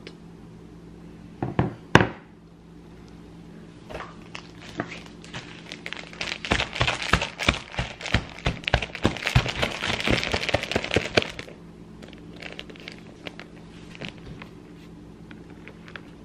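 Plastic bag of powdered sugar crinkling and rustling as it is opened and handled, a dense crackling for several seconds in the middle, then fainter rustling as it is tipped to pour. Two sharp knocks, the loudest sounds, come about one and a half and two seconds in.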